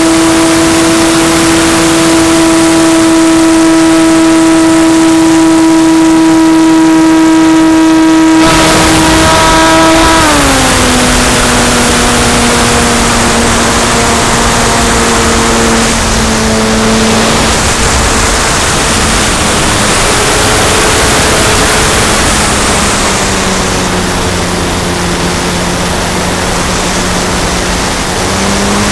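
RC model airplane's motor and propeller heard from an onboard camera, with wind rushing past. The steady high hum drops in pitch about 8 to 10 s in as the throttle is pulled back, sinks a little further, then climbs again near the end as the throttle opens.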